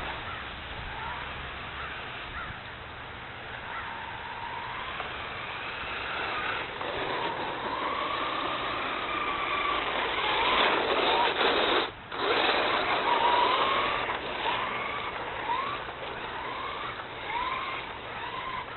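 Radio-controlled car's motor whining, its pitch rising and falling over and over as the throttle is worked, with a louder stretch of tyre and surface noise about halfway through as it slides on the ice.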